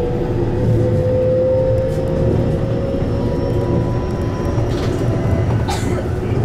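Keihan Electric Railway commuter train running along the Katano Line: steady rumble of wheels on rail under a motor whine that rises slowly in pitch over the first few seconds. Two short, bright noises come near the end.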